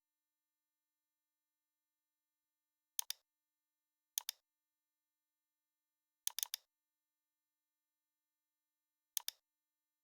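Computer mouse clicking in short groups, among them a double-click about 3 s in, a single click, a quick run of three clicks and another double-click near the end, with dead silence between.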